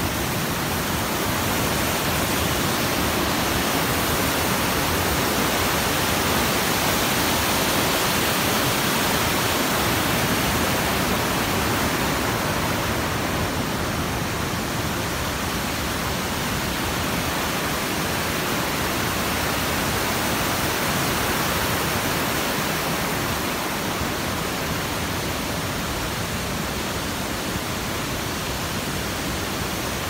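A mountain waterfall and its stream rushing steadily.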